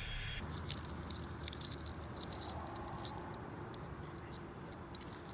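Metal handcuffs being snapped onto wrists: a quick, irregular run of sharp metallic clicks and clinks as the cuffs ratchet shut and the links knock together.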